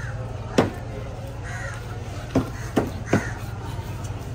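Crows cawing three times, over sharp knocks of a heavy knife chopping into a bluefin tuna head on a wooden block. There are four chops, and the first, about half a second in, is the loudest.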